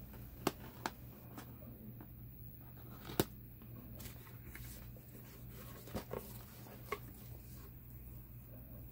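Scissors cutting packing tape on a cardboard box, then the box being opened and handled: a few scattered sharp clicks and soft rustles, the loudest about three seconds in, over a faint steady hum.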